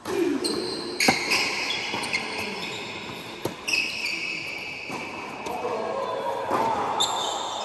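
Tennis doubles rally: several sharp racket-on-ball hits, echoing in a large indoor tennis hall. Long high ringing tones sound over the hits.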